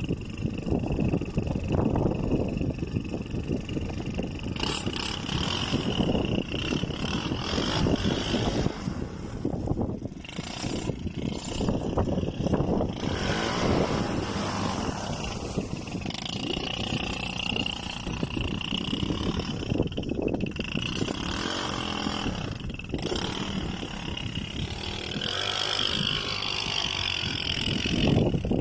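Small 150cc ATV engine running and revving, its sound rising and falling again and again while the quad slides on ice.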